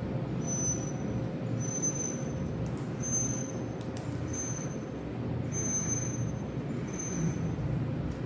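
Steady low rumble with a short, high-pitched beep repeating about every second and a quarter, and a few faint clicks.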